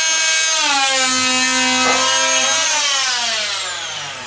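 Oscillating multi-tool (a MultiMaster) running as it cuts a rectangular hole through the side panel of a bathroom vanity unit, a steady high buzz. Its pitch drops slightly about half a second in, then from about three seconds falls away steadily as the tool winds down.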